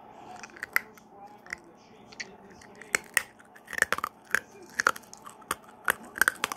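A mouthful of bitten sour hard candy being chewed close to the microphone: irregular crunches and wet mouth clicks, coming thicker and louder in the second half.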